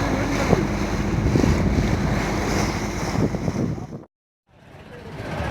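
Fishing boat's engine running under wind buffeting the microphone and the wash of the sea. The sound stops abruptly about four seconds in, then returns.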